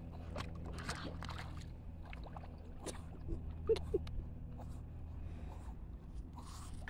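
Small splashes and lapping water as a Pomeranian paddles through shallow water, over a steady low hum. Two short squeaks about halfway through.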